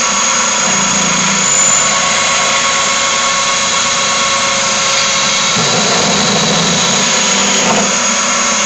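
Half-horsepower drill press driving a nine-spindle multiple-spindle drilling head at about 3,000 RPM, running with a steady whine as nine quarter-inch bits drill into dense HDPE plastic. The press barely has enough power for the job, and the head slows a little under the load.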